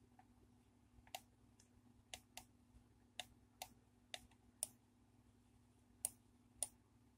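Computer mouse clicking about ten times: short sharp clicks, some in quick pairs, over a faint steady hum.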